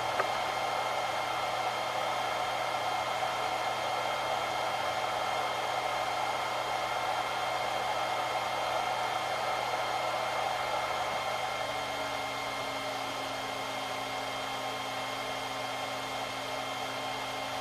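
Tevo Tarantula 3D printer idling with nothing printing: its cooling fans whir steadily, with a few steady whining tones over the rush of air. About twelve seconds in, a low hum comes in and the sound gets slightly quieter.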